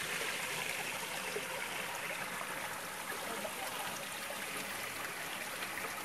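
Steady rush of water from a waterfall and its stream running over rock.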